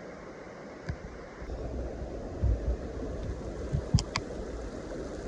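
Outdoor rustling hiss with wind buffeting the microphone, growing into a heavier low rumble about a second and a half in. Two sharp clicks, close together, come near the end.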